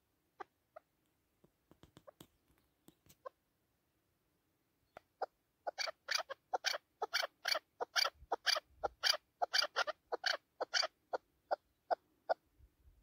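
Chukar partridge calling: a fast run of short, sharp clucking notes, about three a second, that starts about five seconds in and thins out near the end. A few faint clicks come before it.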